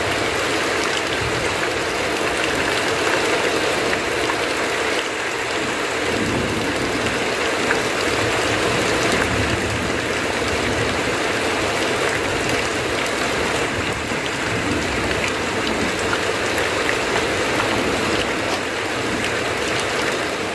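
Heavy rain falling on a tin roof: a steady, even hiss with scattered sharp drop hits, and water running off the roof edge.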